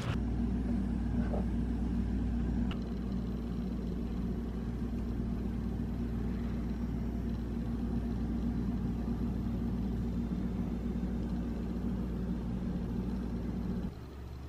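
A steady low mechanical hum that changes slightly a few seconds in and drops away near the end.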